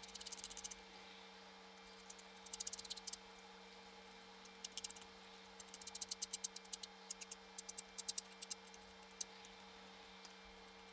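Faint, irregular small clicks and scratches of hands working on laptop parts, coming in short clusters, over a steady low hum.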